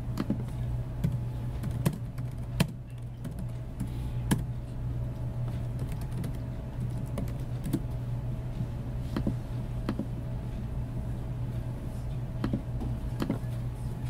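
Computer keyboard keystrokes, sparse and irregular, as a command is typed into a terminal, over a steady low hum.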